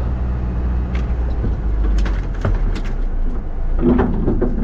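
Isuzu NPS 4x4 truck's diesel engine running steadily at low speed on a bumpy sand track, with sharp knocks and rattles from the truck as it rolls along, the loudest cluster about four seconds in.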